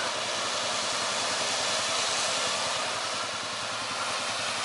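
Steady engine running with a broad hiss of machinery: an ATV-mounted 3,000-pound electric winch hauling a stuck two-wheel-drive Ford Explorer along a taut line while the Explorer's engine is given gas.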